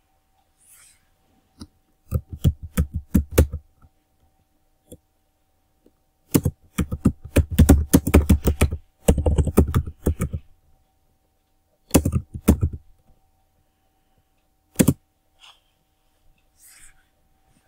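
Computer keyboard typing in bursts of rapid keystrokes with pauses between, and one lone keystroke near the end.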